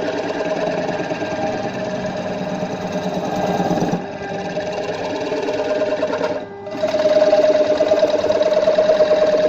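Wood lathe running with a turning chisel cutting into a large spinning wood blank: a steady mechanical hum with a fast, even chatter. It dips briefly about six and a half seconds in, then comes back louder.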